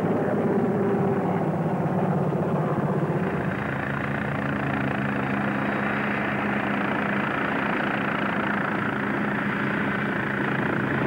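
Helicopters flying past in a display, with fast rotor blade chop over engine noise. About three and a half seconds in this settles into a steadier drone carrying a held engine tone.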